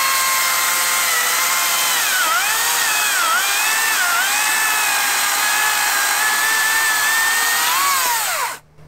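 Makita DUC306 cordless 2×18 V chainsaw cutting through a log about 20 cm thick in boost mode, its motor whine dipping in pitch several times as the chain bites under load, without stalling. Near the end the pitch rises briefly, then falls, and the saw stops as the cut finishes.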